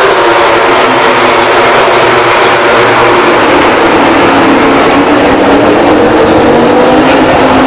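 Ducati Desmosedici GP21 MotoGP bike's V4 engine running as the bike rides off down pit lane. Its pitch falls slowly over a few seconds, and the sound stays loud throughout.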